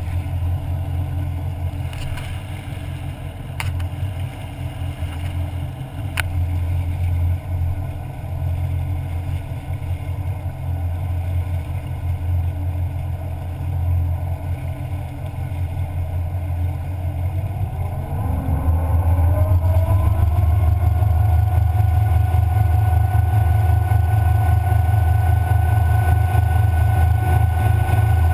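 Twin Mercury 496 Mag big-block V8 inboards on a 2001 Formula 33SS running at low speed with a steady low rumble. About two-thirds of the way through they throttle up, rising in pitch over a couple of seconds, then hold at higher revs, louder and steady, as the boat gathers speed.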